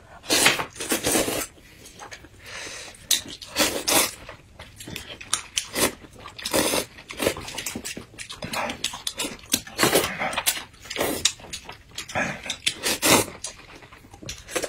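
Loud slurping of noodles, sucked up in repeated bursts of under a second to about a second each, with chewing and mouth noises in between.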